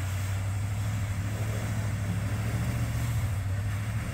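RAM 1500 pickup's engine running steadily at low revs, a low even hum, as the truck creeps forward.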